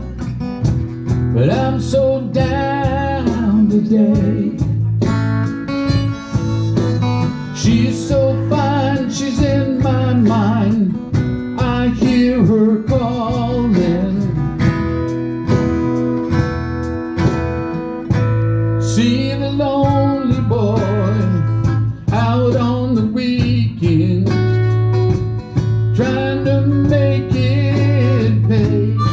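Live band playing a slow blues-country song: electric and acoustic guitars over steady low notes, with a man singing.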